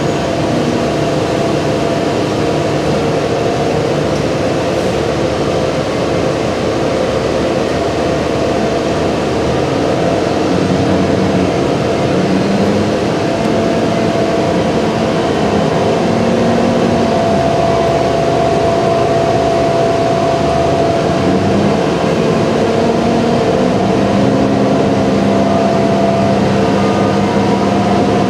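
Inside of a transit bus rolling at low speed: steady engine and drivetrain hum with several tones that shift in pitch as the bus moves, over road and ventilation noise.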